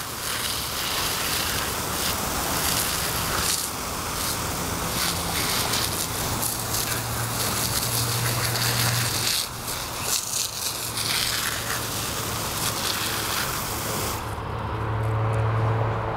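Garden hose water jet hissing and spattering as a dog plays in the spray. The spray noise stops about two seconds before the end.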